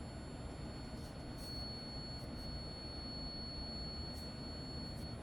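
Quiet background noise with a thin, steady high-pitched electronic whine running through it, and a few faint soft clicks.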